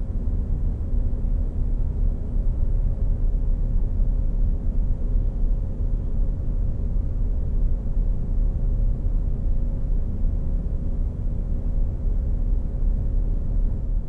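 A steady low rumble with a faint, even hum running through it.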